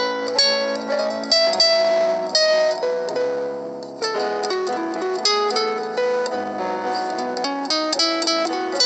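Background music: a plucked string instrument playing a quick run of notes, with a brief lull about three and a half seconds in.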